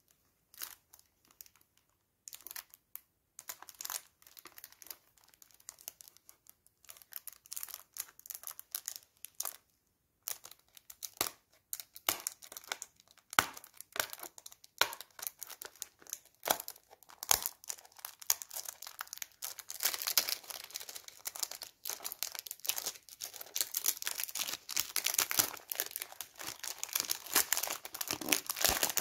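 Clear cellophane wrap being picked at, torn and peeled off a cardboard perfume box by hand: scattered crinkles and small ticks that grow denser and louder over the last third.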